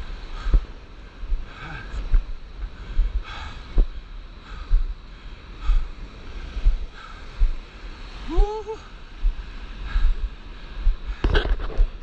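Shallow whitewater surf hissing around a stand-up paddleboard, with wind buffeting the camera microphone in low thumps about once or twice a second. A short rising pitched call sounds about eight seconds in.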